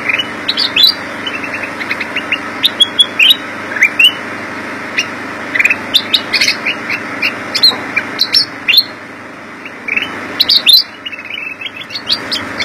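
Black-crested bulbul (Pycnonotus melanicterus) singing in its cage: quick runs of short, sharp chirping notes, many of them sweeping upward in pitch, broken by brief gaps, with a steady background noise underneath.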